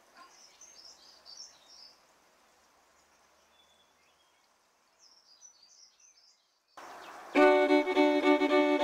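Faint, high peeping of mallard ducklings in the first two seconds and again around five seconds in. About seven seconds in, loud fiddle music starts and takes over.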